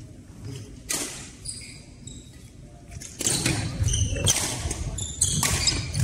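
Badminton doubles rally on a wooden hall floor: sharp racket hits on the shuttlecock, with shoe squeaks and footfalls. A single hit comes about a second in, then the rally gets busier and louder from about three seconds in.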